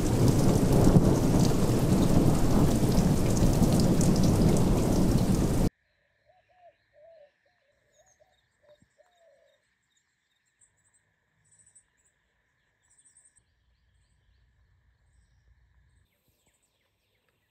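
Heavy rain with a low rumble of thunder, cutting off suddenly about six seconds in. Then near silence with a few faint bird calls and a faint steady high hum.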